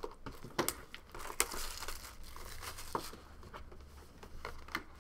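Hands opening and handling cardboard trading-card boxes: crinkling and tearing of the wrapping, with a few sharp taps and clicks of cardboard.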